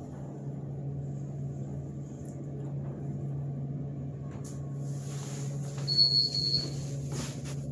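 Steady low hum of a 2003 KONE hydraulic elevator in operation, with a few faint clicks and a short high-pitched beep about six seconds in.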